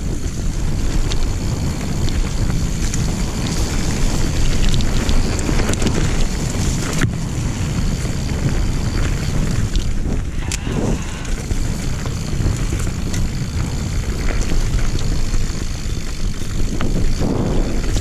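Wind buffeting the microphone and tyres rolling over dirt and dry leaves as a mountain bike descends singletrack, with scattered clicks and knocks from the bike over the rough trail.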